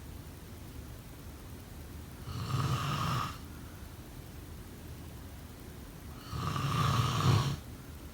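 A sleeping person snoring: two snores, each about a second long, about four seconds apart.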